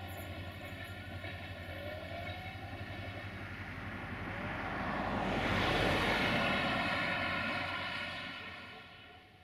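A distant engine drone, steady and humming, swells to its loudest about six seconds in, then fades away near the end, like a vehicle passing out of range.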